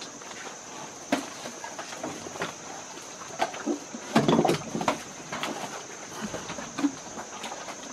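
Asian elephants feeding from plastic baskets: scattered clicks and rustles as their trunks rummage through the food, with a louder burst of rustling about four seconds in.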